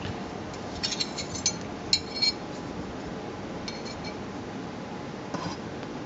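Flat steel knife blanks, 5/16 inch thick, clinking against each other: a handful of light metallic clinks with a short ring, in small clusters about one, two, four and five and a half seconds in.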